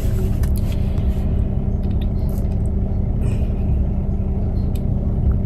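Steady low rumble of a car heard from inside the cabin, with a constant low hum and a few faint clicks.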